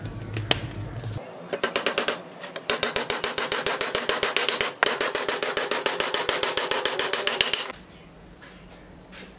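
A hammer driving nails into wooden timber with rapid, evenly spaced strikes, about seven a second. The strikes start about a second and a half in, pause briefly in the middle, and stop suddenly near the end.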